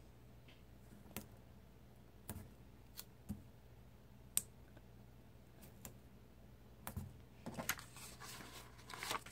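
Faint scattered ticks of fingers and nails pressing planner stickers onto paper, then a soft rustle of a paper sticker sheet being handled near the end.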